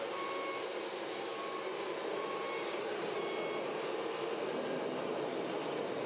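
Radio-controlled model trucks running: a steady mechanical hum with short electronic beeps coming and going every second or so, like a reversing beeper.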